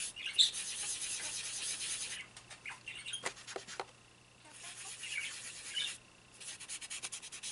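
Cotton pad rubbing dry soft pastel into paper in quick back-and-forth strokes, a dry scratchy hiss. It comes in two spells, over the first two seconds and again around five seconds in, with a few light ticks in between.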